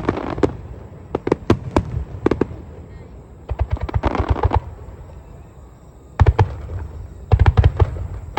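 Aerial fireworks going off in rapid volleys of sharp bangs, in clusters with a short lull in the middle before a dense run of bursts near the end.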